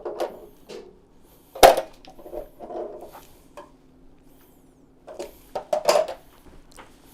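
Scattered knocks and clatter of tools or parts being handled, with one sharp knock about one and a half seconds in and another burst of clatter near the end.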